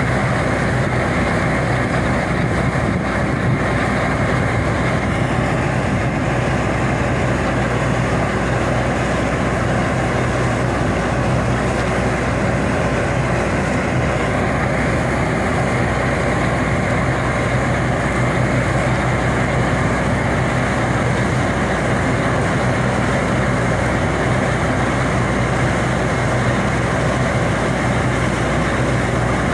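Fortschritt E514 combine harvester working through winter barley: its diesel engine and threshing machinery running steadily under load.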